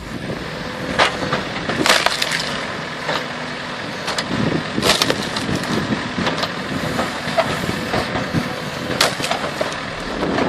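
Wood splitter built from a John Deere 14T forcing frozen rounds apart: the wood cracks and splinters sharply several times over a steady machine noise.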